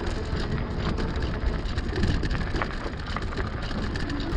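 Wind buffeting the microphone and the fat tyres of an e-bike rumbling and crackling over the trail surface while riding.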